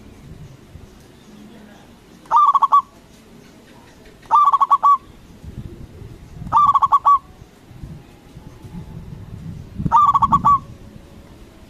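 Zebra dove (perkutut) cooing: four short phrases of quick repeated notes, each about half a second long, a couple of seconds apart.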